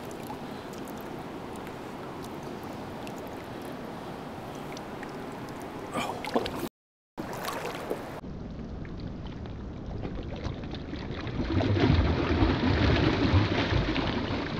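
Shallow river water running over gravel, steady. Near the end comes a louder stretch of heavy splashing as a released chinook salmon thrashes and bolts away through ankle-deep water.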